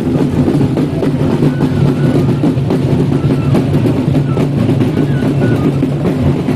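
Several hand-held frame drums beaten with sticks in a dense, continuous drumming, with short high melodic notes heard over it through the middle.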